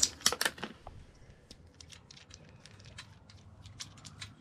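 A clear plastic bag crinkling and rustling as hands unpack a broadhead from it. It gives a few louder crackles in the first second, then faint scattered ticks.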